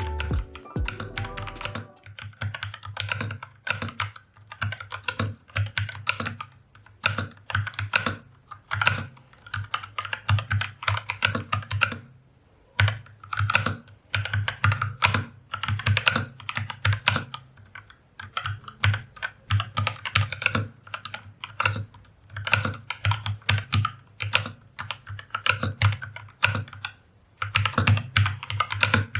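Typing on a MAGEGEE MK-BOX 65% mechanical keyboard with linear red switches: runs of quick keystrokes with a few short pauses.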